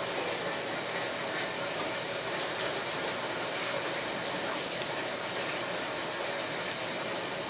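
A razor blade dragged through thin plastic covering film to trim it flush: faint crinkling with a few small, sharp ticks scattered through.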